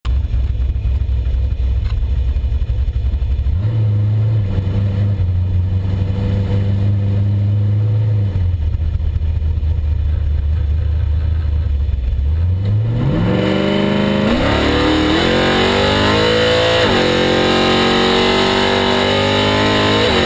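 1986 Ford Thunderbird's engine running at low, steady revs, stepping up briefly and settling back, then accelerating hard about two-thirds through: the pitch climbs steeply, drops and climbs again twice, as on upshifts through the gears.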